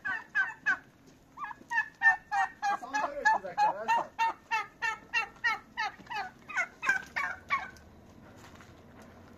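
Domestic turkeys calling: a long run of short, repeated notes, about three a second, that stops shortly before the end.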